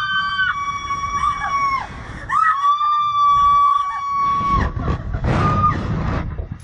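A woman screaming on a slingshot ride: two long, high, held screams, the second starting about two and a half seconds in, followed near the end by a rushing noise and a short cry.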